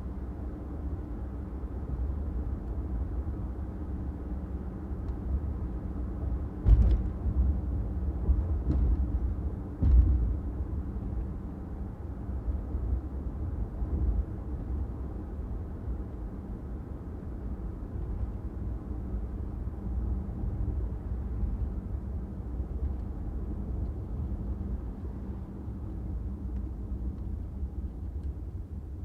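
Car driving on city streets: a steady low road and engine rumble, with two sharp thumps about seven and ten seconds in and a lighter one between them.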